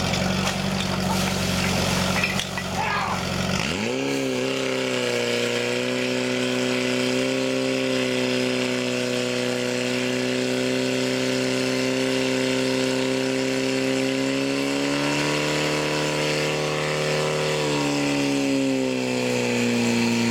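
Portable fire pump's engine running low, then about three and a half seconds in revving up sharply in a rising sweep to full throttle and holding a steady high pitch while it pumps water through the attack hoses; the pitch lifts slightly and then drops back a little near the end.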